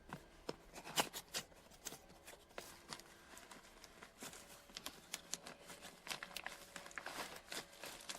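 Packaging and small plastic parts being handled: irregular light clicks, taps and brief rustles, faint throughout.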